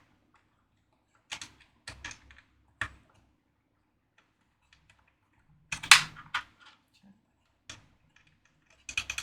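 Scattered clicks and light knocks of small hardware being handled as a pigtail antenna cable and its connector are fitted into the miner enclosure, with the loudest cluster about six seconds in.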